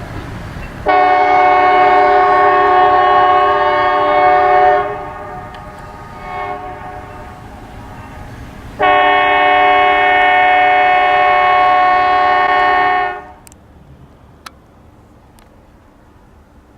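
Train horn sounding two long blasts of about four seconds each, a steady chord of several notes, over the low rumble of the passing train. The rumble dies away soon after the second blast.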